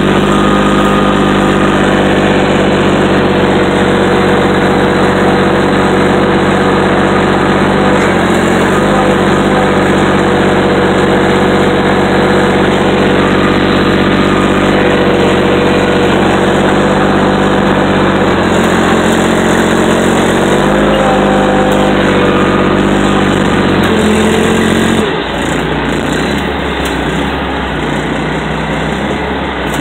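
Diesel engine of a Komatsu hydraulic excavator running steadily while it works a debris pile, its pitch rising briefly a couple of times. Near the end the engine sound drops a little and turns rougher.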